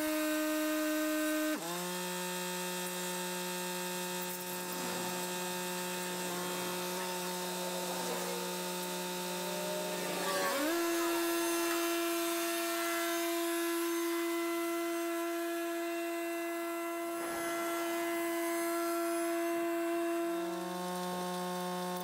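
Kubota tractor engine running in sped-up footage, heard as a steady high-pitched whine. Its pitch drops about a second and a half in, rises about halfway through and drops again near the end as the throttle changes.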